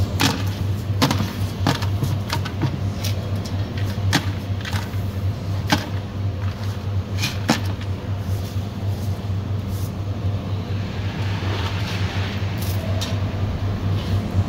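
Steady low machine hum with scattered sharp clicks and knocks, and a stretch of bristle brushing on stainless steel a little after the middle, as flux is swept off a submerged arc weld bead.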